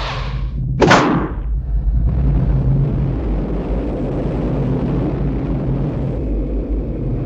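Cartoon sound effects: a sharp hit about a second in, then a steady low rumble with a faint hiss over it.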